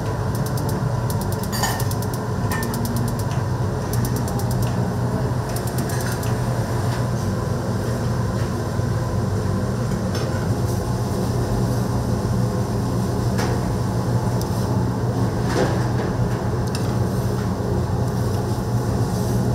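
Restaurant kitchen ambience: a steady low hum of kitchen equipment with scattered clinks and knocks of dishes and utensils, and a few quick runs of fine ticking in the first several seconds.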